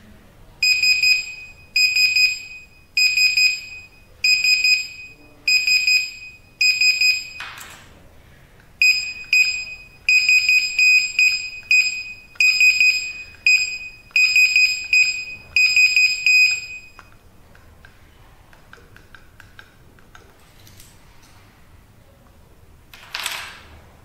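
Access-control keypad's built-in buzzer beeping over and over in a high, piercing tone. First come about six beeps roughly a second apart, then faster runs of beeps that stop about two-thirds of the way through, as if repeated invalid card or PIN entries are being rejected toward a lockout. A brief rustling scrape comes near the end.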